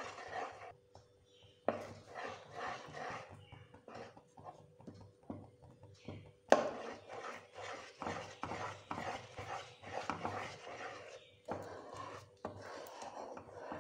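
Wooden spatula stirring a thick condensed-milk and cocoa mixture in a pan on low heat, a rhythmic scraping of the spatula along the pan with each stroke as the mixture thickens. There is a sharper knock about halfway through.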